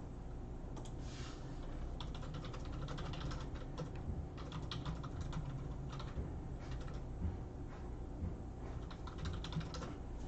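Faint typing on a computer keyboard: scattered light clicks at an irregular pace over a low steady background hum.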